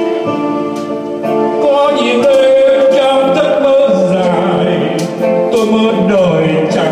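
A man singing a Vietnamese song into a microphone, accompanied by a Yamaha electronic keyboard, holding one long note about two seconds in.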